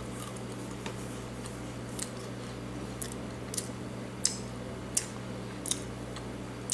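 A person chewing a piece of raw white oak acorn with the mouth closed: short crisp crunching clicks every half second to a second. A steady low hum runs underneath.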